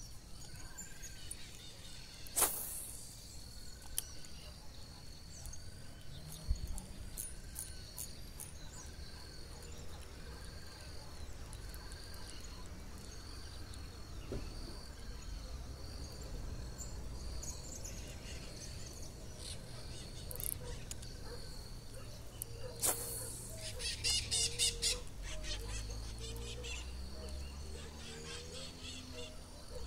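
Outdoor ambience with a short chirping call repeating about once a second, broken by a few sharp clicks and a quick rattling series late on. A low hum rises near the end.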